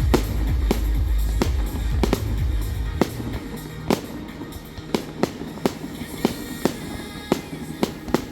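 Fireworks going off in a rapid run of sharp bangs and crackling pops, over music. The music's heavy bass stops about three seconds in, after which the separate bangs stand out.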